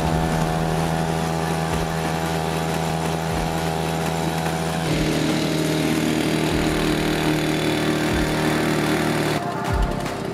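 Small engine of a child-sized Shelby Cobra replica car running at a steady, high speed as the car spins in circles, kicking up tyre smoke. The pitch holds steady, then jumps to a different steady pitch about five seconds in and again near the end.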